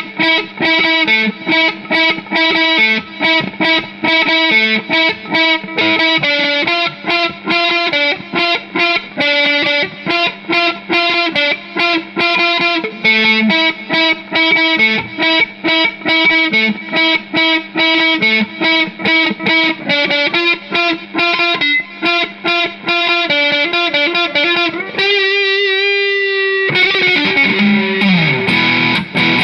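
Electric guitar through distortion, picking a fast run of single notes. Near the end it holds one note with vibrato, then moves into fuller chords.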